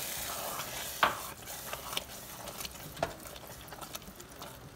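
A spoon stirring yogurt into a pan of cooked chickpeas, scraping and knocking against the pan: one sharp knock about a second in, then a few lighter ones, over a light sizzle in the first second.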